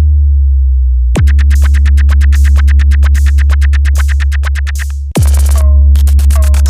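Loud electronic dance music: a descending bass tone fades out, then a heavy sub-bass drone comes in about a second in with a fast run of drum-machine hits. Just after five seconds a falling bass drop breaks it and the beat restarts with short chirping synth notes.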